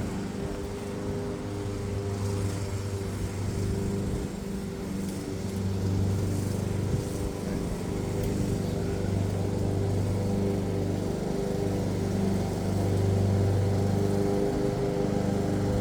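Lawn mower engine running steadily, a little louder in the second half.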